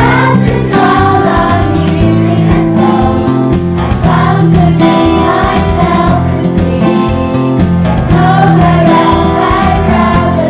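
Children's choir singing a song in unison over an instrumental accompaniment with a steady beat.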